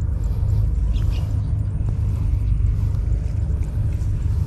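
Low, steady rumble of wind buffeting the microphone, with a few faint ticks.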